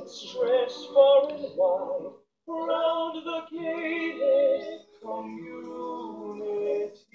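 A cartoon song: voices singing held, wavering notes over musical accompaniment, in phrases with two short breaks.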